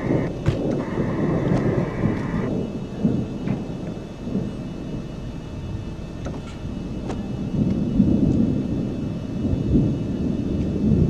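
Thunderstorm noise: a low, gusting rumble of wind and thunder that swells and fades, with scattered sharp ticks.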